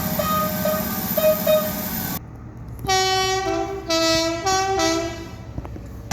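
Train horns: a horn sounding over a low rumble cuts off about two seconds in. Then, after a short gap, a multi-tone horn sounds a run of short chords, its notes shifting every half second or so, for about two and a half seconds.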